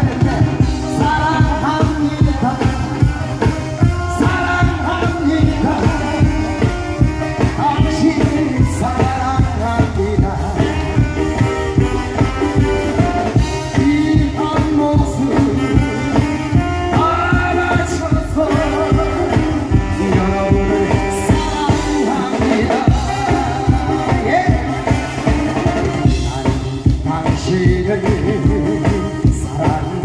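A man singing into a handheld microphone over amplified musical accompaniment with a steady beat.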